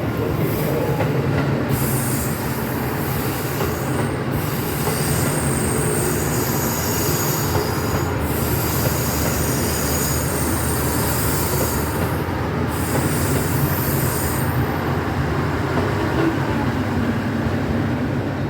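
KiHa 85 series diesel train running on rails: a steady engine drone and rail rumble, with high-pitched wheel squeal that comes and goes several times.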